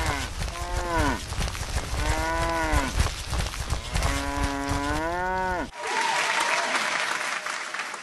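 Cow mooing: the end of one call, then three long moos, each rising and then falling in pitch, over a low rumbling background. Near the end the mooing stops and a steady hissing noise takes over.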